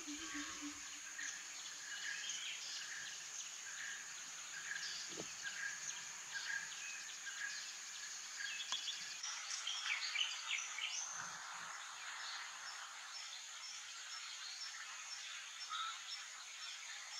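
Outdoor wildlife ambience: a steady high insect drone with animal calls over it, a short call repeated at a steady pace for the first half, then a busier mix of chirps after the background changes about nine seconds in.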